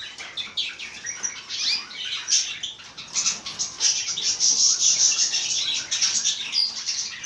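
A group of small pet birds chirping and chattering together: a continuous stream of high, short chirps and trills from many birds at once, growing busier about three seconds in.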